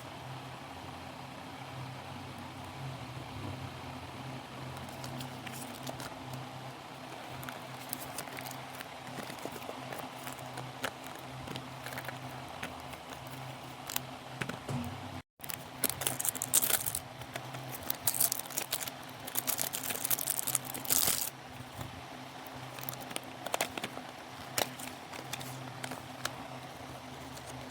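Packaging being handled and opened: crinkling, rustling and small clicks, with louder bursts of crinkling for a few seconds after about sixteen seconds in, over a steady low hum.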